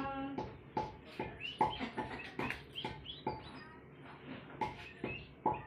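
Dried turmeric being pounded with a wooden pestle on a wooden board for the Shagun haldi ritual: sharp knocks, about two a second.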